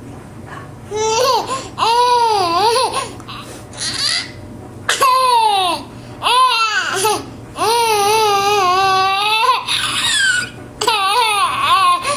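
A young child laughing in about six high-pitched, drawn-out bursts with short breaks between them.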